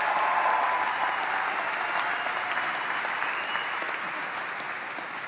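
Audience applause filling a large arena, with a few cheers in the first second, slowly dying down.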